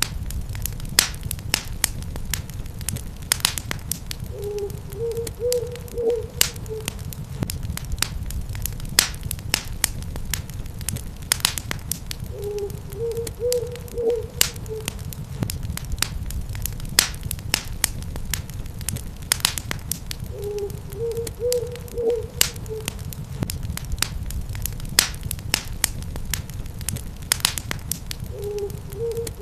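Wood fire crackling and popping steadily over a low rumble. A short series of owl hoots repeats about every eight seconds, four times.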